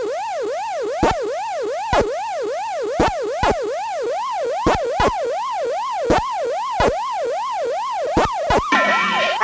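Fast yelping siren, its pitch swooping up and down about three times a second, cut through by sharp knocks at uneven intervals, about a dozen in all.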